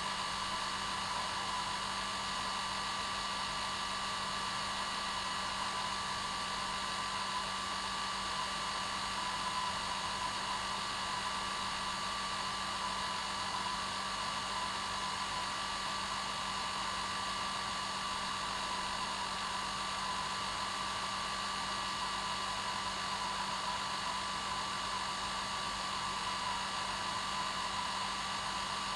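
Hair dryer running steadily on its normal setting: an even blowing hiss with a steady whine from the motor and fan.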